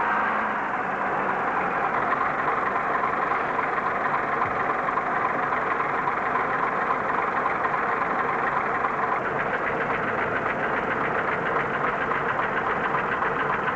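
Diesel bus engine idling with a steady, rapid clatter that grows more distinct about nine seconds in.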